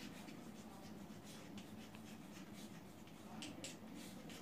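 Chalk scratching and tapping on a blackboard as a word is written out in a series of short, faint strokes, two sharper ones about three and a half seconds in.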